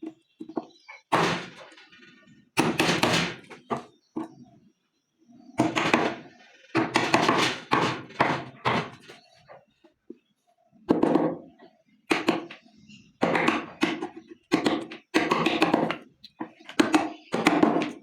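A series of irregular wooden thunks and knocks, a dozen or so spread unevenly.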